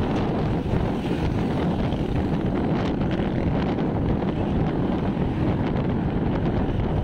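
Steady wind rushing over the microphone of a camera moving along a road, with road and traffic noise underneath.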